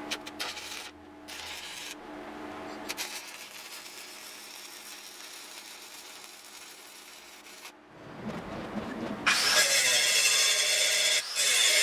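Electric arc welding on mild steel, a steady crackling hiss, then an angle grinder that spins up about eight seconds in and grinds the welded steel axe head, much louder than the welding.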